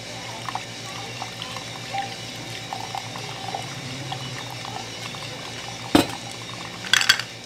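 Hot water poured in a thin stream from a gooseneck kettle onto coffee grounds in a pour-over dripper, over a coffee roaster's steady running hum. About six seconds in there is a sharp knock as the kettle is set down on the table, then a brief clatter.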